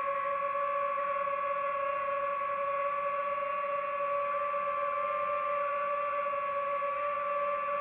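Drone motors and propellers whining steadily in flight, several held tones with a few of the higher ones wavering slightly as the motor speeds shift.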